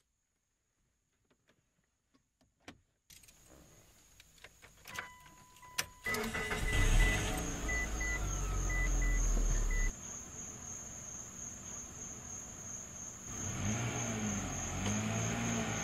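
A few clicks and a short beeping chime, then an engine starts about six seconds in and runs steadily. It settles lower about ten seconds in and keeps running, its pitch wavering near the end.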